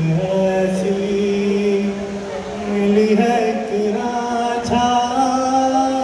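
A man singing a slow melody into a microphone, holding long notes and sliding between them.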